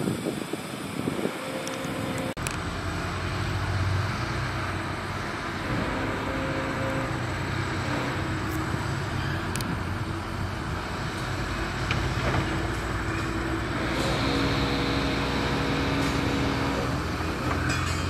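Diesel engine of heavy earthmoving machinery running steadily under load, its note shifting a few times.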